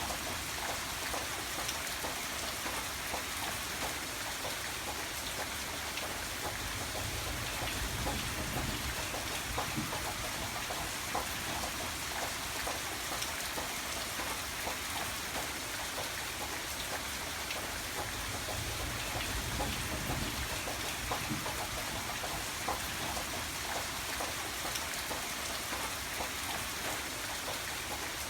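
Steady rain falling, with a dense patter of individual drops over a continuous hiss, and a low rumble that swells twice.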